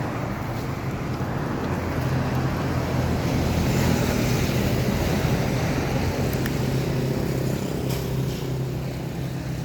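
A motor running steadily with a low hum, like a nearby vehicle engine.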